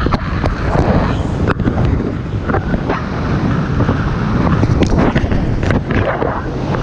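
Airflow rushing over a head-mounted camera's microphone during paraglider flight: loud, gusting wind noise, with a few sharp clicks scattered through it.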